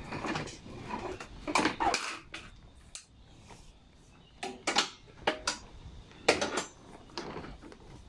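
Metal clinks and short scrapes of a Z-bend tool working the steel wire end of a lawnmower throttle cable, in several separate bursts with pauses between.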